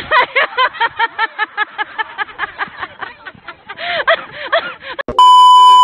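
A woman laughing in quick, high-pitched bursts, about four to five a second. Near the end a loud, steady electronic beep cuts in.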